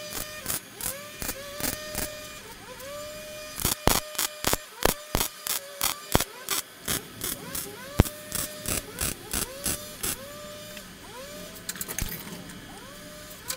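Plastic trigger spray bottle being pumped over and over, about three squeezes a second. Each squeeze is a sharp click followed by a short rising squeak, with a couple of brief pauses.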